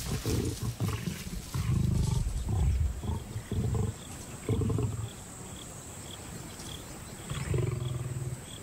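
Lions growling in short, rough bursts in a squabble over a carcass, as a male muscles lionesses off the kill. Several growls come close together in the first half, then a lull, then one more growl near the end.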